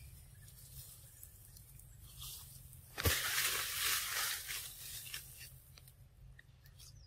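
Macaque eating a chunk of ripe fruit at close range: biting and tearing into the soft flesh. About three seconds in a sudden loud noisy burst starts with a thump and fades over about two seconds.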